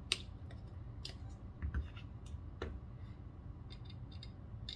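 Small Torx screwdriver working the screws of a pocketknife's plastic handle scale: a few light, separate clicks and ticks of the metal bit and screws against the knife.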